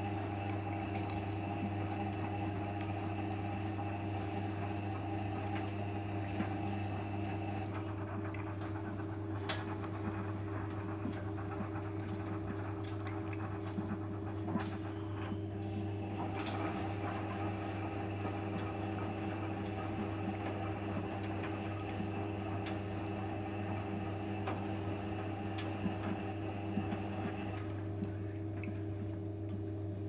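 Beko front-loading washing machine on a 60 °C eco wash: the drum tumbles a sudsy load of towels, with water sloshing over a steady motor hum and small clicks. The sloshing falls away for a few seconds about a third of the way in and again near the end.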